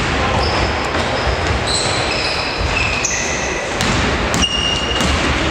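Basketball game in a gym: sneakers giving short high-pitched squeaks on the wooden floor and the ball bouncing, over the echo of the hall.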